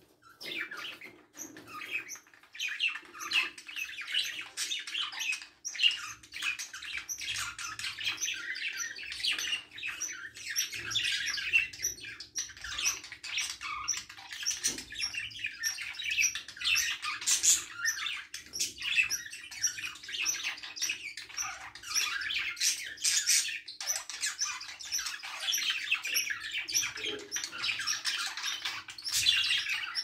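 A flock of budgerigars chattering, a dense continuous stream of quick chirps and squawks from many birds at once, sparser for the first couple of seconds. A faint steady hum runs underneath.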